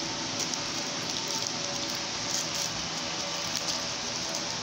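Steady rushing hiss throughout, with a few faint crinkles from the aluminium foil wrapped around a shawarma as it is handled.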